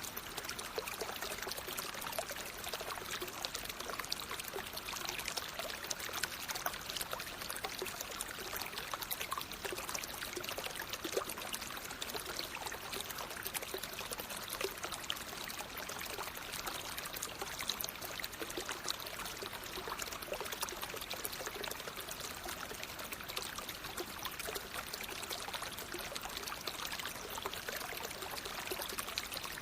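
Flowing water in a natural stream: a steady rush with many small splashes and gurgles.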